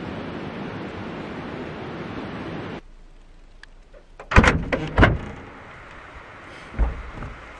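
A steady rushing noise that cuts off abruptly about three seconds in. After a short quiet, a cluster of loud knocks and clatter comes at four and a half to five seconds, with one more knock near the end.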